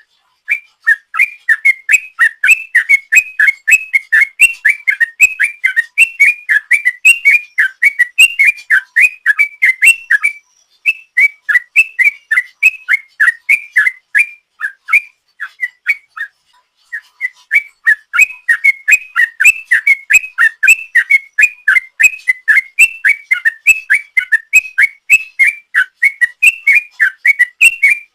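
Yellow-vented bulbul (trucuk) singing a long, rapid run of whistled notes, about four a second, with two brief breaks around the middle. It is the long continuous 'ropel' song that bird keepers prize in a bird in full song.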